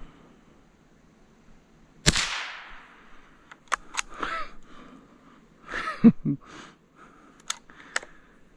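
A single rifle shot about two seconds in, with a short echo trailing off, followed by scattered clicks and knocks of the rifle being handled.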